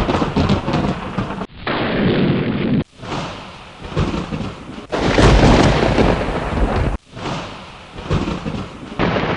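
Thunder rumbling over steady rain, in short spliced clips that cut off abruptly every one to two seconds; the deepest, loudest rumble comes about halfway through.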